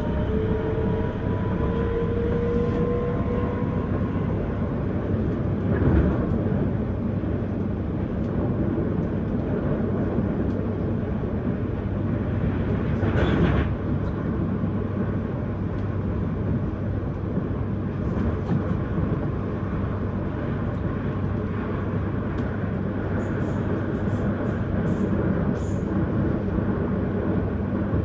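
S-Bahn electric commuter train running on the rails, heard from on board: a steady rumble, with a faint whine rising in pitch over the first few seconds as the train picks up speed. Two short louder knocks come about six and thirteen seconds in.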